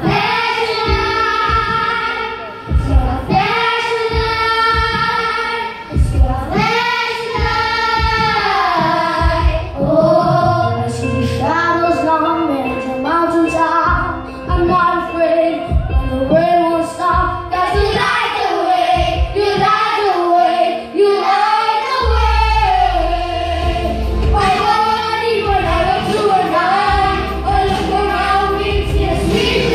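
A child singing a song solo over instrumental accompaniment, with long held notes. A low bass part in the accompaniment grows stronger a little past two-thirds of the way through.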